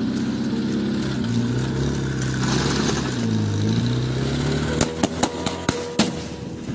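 A vehicle engine running, its pitch rising and falling. Near the end comes a quick run of about six sharp bangs: film special-effects pyrotechnic charges fired by a handheld radio remote trigger.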